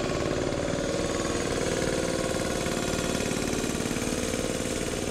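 Small engine of a ride-on scale diesel-outline locomotive running steadily as the train passes, a rapid even chugging.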